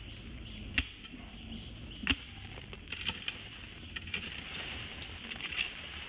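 Digging hoe chopping into soil: two sharp strikes, about a second in and again about a second later, then lighter knocks and scrapes as earth is dug out.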